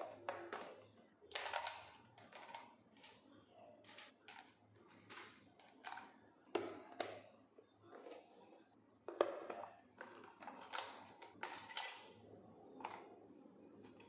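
Kitchenware being handled and set down: a string of irregular clinks and knocks, the loudest about nine seconds in.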